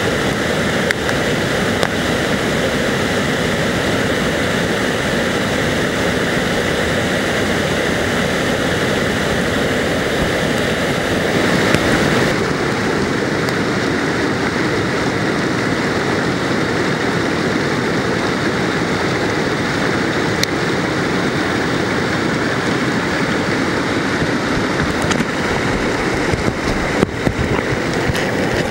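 Barron Falls in flood, a huge volume of brown floodwater pouring over the rocks and down the falls: a loud, steady rushing roar. The high hiss thins about twelve seconds in.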